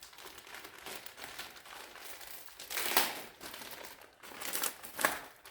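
Plastic packaging crinkling and rustling as saw parts are handled and unwrapped, with two louder crackles about three and five seconds in.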